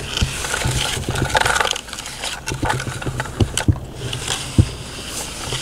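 Plastic toy CAT skid steer loader pushed by hand through wet, gritty mud, its bucket scraping and crunching, with scattered sharp clicks.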